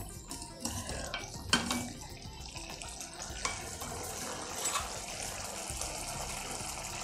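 Bottle gourd curry sizzling and simmering in a stainless-steel kadai right after a handful of water is sprinkled in, a steady hiss. A wooden spatula stirring scrapes and knocks on the pan a few times.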